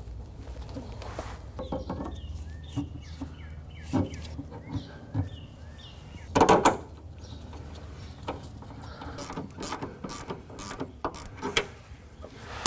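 Metal clinks and knocks of hand tools and suspension hardware as a stabilizer end link bolt is fitted, with a loud clatter about six seconds in and a run of quick ratchet-wrench clicks later on.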